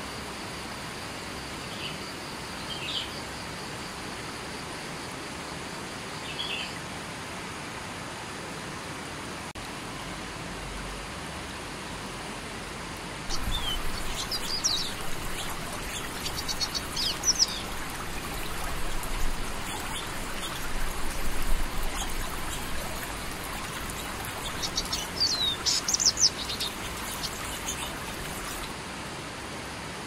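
Steady rush of river water flowing over rocks, with a few faint bird chirps at first. About halfway through, a louder stretch of songbirds chirping and calling rapidly begins, then stops suddenly near the end.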